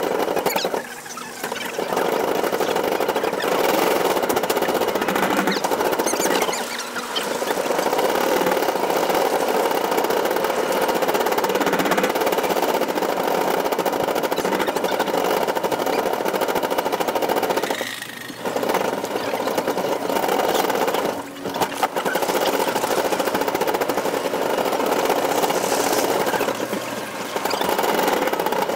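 Metal shopping cart rolling across a store floor, its wheels and wire basket rattling steadily, with a few brief pauses where it stops.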